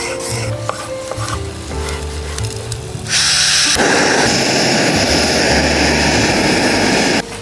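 Background music with light knife taps on a wooden cutting board. About three seconds in, a loud hiss starts as a stove valve is opened, then a lower steady burner roar joins it. The noise cuts off suddenly near the end.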